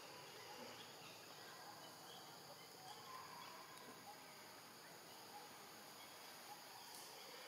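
Near silence: faint outdoor ambience with a steady, high insect drone.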